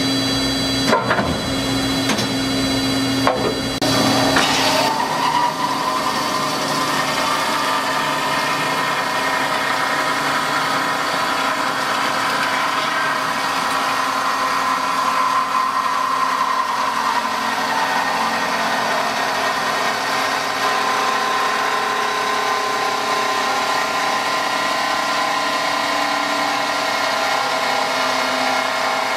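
CNC band saw blade running and cutting down through a rectangular steel tube, with coolant spraying on the cut. There are a few knocks in the first seconds. About four seconds in, a steady many-toned whine sets in as the blade bites into the steel, and it holds through the cut.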